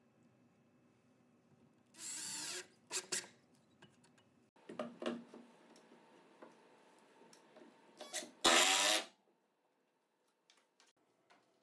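A power drill running in two short bursts, with wooden knocks and clicks in between as the plywood cleat block is handled.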